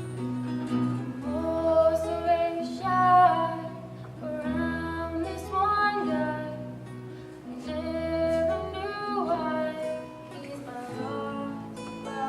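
A female voice singing held notes over acoustic guitar accompaniment.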